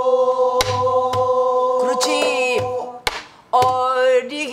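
A woman singing pansori in a long held, wavering note that breaks off about three seconds in and then starts again. Five or so knocks on a buk barrel drum, struck with stick and hand, mark the beat under the voice.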